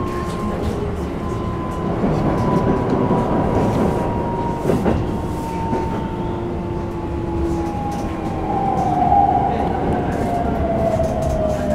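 Keikyu New 1000 series train's Toyo IGBT-VVVF inverter and traction motors whining in steadily falling tones as the train slows, over the rumble of wheels on track, heard from inside the car.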